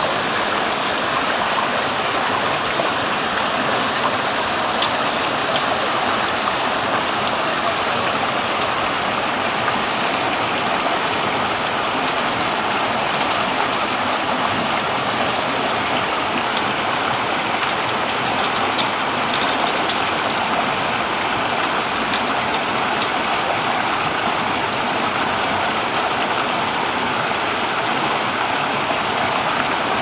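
Shallow boulder-strewn creek rushing steadily over and between rocks, with a few faint clicks in the middle.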